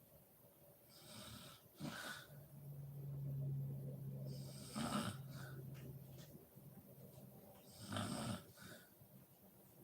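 A sleeping woman snoring: a breathy puff of breath, then one long, low, steady snore of about four seconds, another puff, and a double puff near the end.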